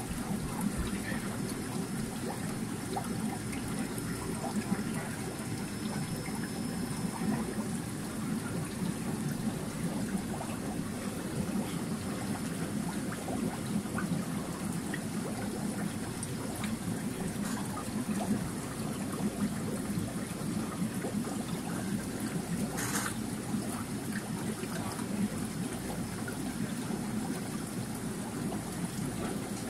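Aquarium water circulating with a steady trickling, running-water noise, and a single sharp click about two-thirds of the way through.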